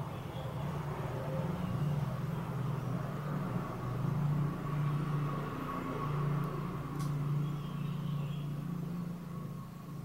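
Low, steady engine-like hum that swells and eases slightly, with a faint thin whine above it.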